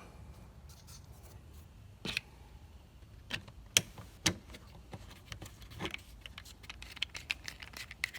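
Scattered light clicks and taps of a plastic bottle and cap being handled after the oil additive has been poured in, with the loudest clicks about two and four seconds in, over a faint low hum.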